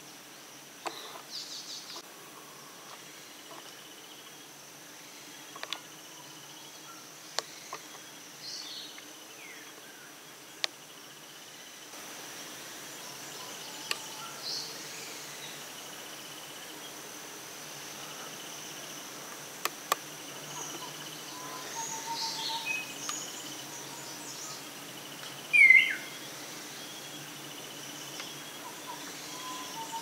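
Tropical forest ambience: a steady high insect drone with scattered bird calls and chirps. Several sharp clicks stand out, and near the end a loud, short falling call.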